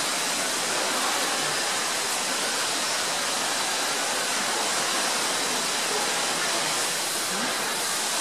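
Steady, even rush of water noise, with African elephants splashing in a pool.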